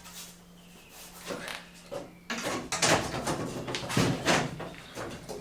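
Floor panels being slid and knocked into place in a Land Rover's cab: a run of scrapes and knocks starting about two seconds in, loudest around three and four seconds in, over a low steady hum.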